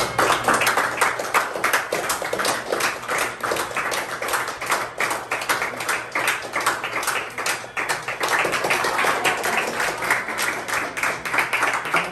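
Audience applauding: many hands clapping quickly and irregularly, loud and sustained.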